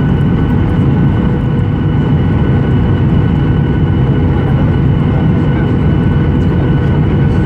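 Steady cabin noise inside a Boeing 737 airliner in flight: a low rumble of engines and airflow, with a few faint steady whining tones over it.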